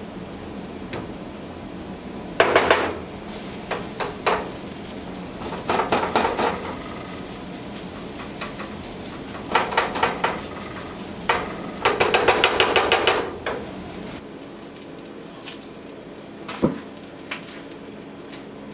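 A cooking utensil stirring and scraping against a skillet in several short bursts of clatter, over a steady sizzle of food sautéing in the pan.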